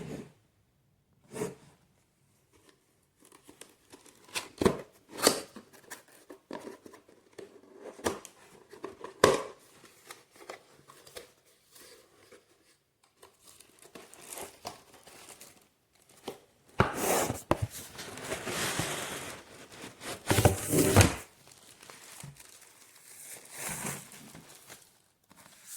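Rustling and crinkling handling noise with scattered knocks and clicks, thickest for a few seconds in the second half.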